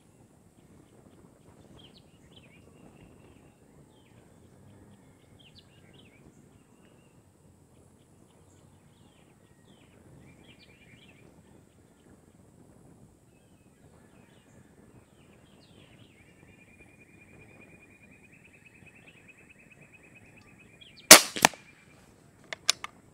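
Faint outdoor ambience with scattered high chirps and one long trill, then a single sharp shot from a .25 Umarex Gauntlet PCP air rifle about 21 seconds in, followed by a few quick clicks.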